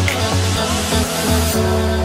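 Background music with a beat and held notes.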